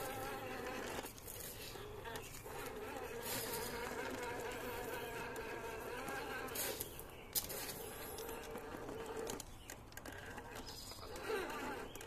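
Electric motor and gear whine of an RC rock crawler climbing rock, the pitch wavering as the throttle changes. It stops about nine seconds in and starts again briefly near the end, with a sharp click about seven seconds in.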